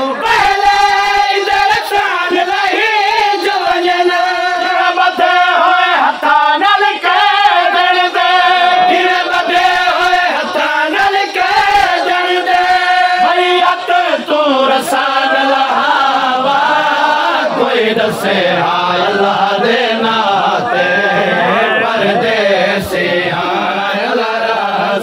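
Men chanting a noha lament with long, drawn-out wavering notes.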